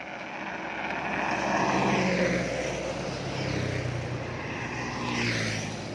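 A motor vehicle passes close by on the road, its engine and tyre noise swelling to the loudest point about two seconds in, with a second swell near the end.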